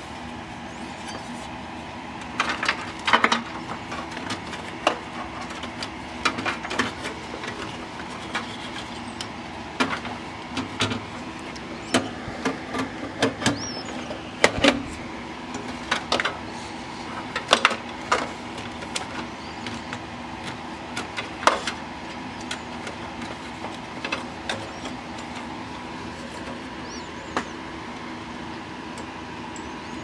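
Scattered clicks, knocks and light rattles of a sheet-metal hard-drive bracket and plastic cable connectors being handled inside a desktop computer case, over a steady hum.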